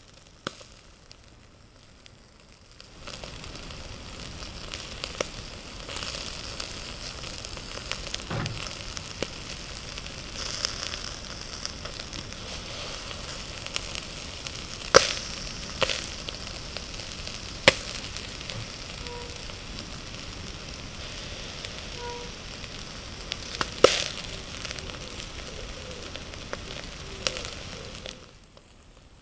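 Capelin grilling on a wire mesh over a charcoal shichirin: a steady sizzling hiss, starting about three seconds in, with sharp crackling pops, three of them much louder than the rest. The sizzle drops away near the end.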